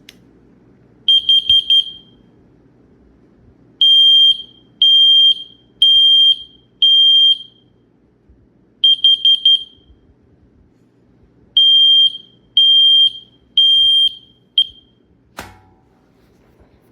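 Combination smoke and carbon monoxide alarm's piezo sounder beeping through its self-test after its test button is pressed: one shrill high-pitched tone in alternating groups, four rapid short beeps, then four longer beeps about a second apart, repeated twice, the last beep cut short. A sharp click comes near the end.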